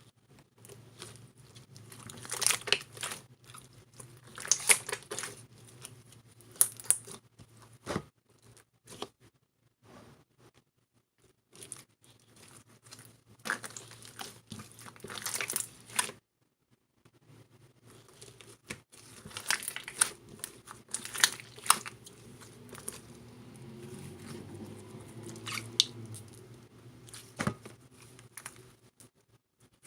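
Clear slime with clay mixed into it, being kneaded and stretched by hand, giving sticky crackling and popping in bursts of a second or two, with a brief pause about two-thirds of the way through.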